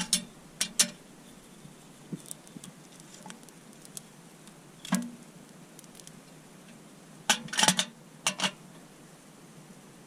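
Sharp metallic clicks and clinks from a small wood-burning tent stove being handled at its door: a few single clicks, then a quick cluster of several about three-quarters of the way in.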